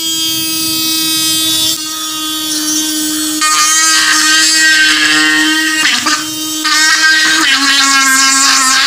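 Small brushed DC motor fitted with a brass collet chuck, running as a homemade drill with a steady whine while it bores into a soft white disc. The pitch dips briefly about six seconds in and drops lower again near the end as the bit takes load.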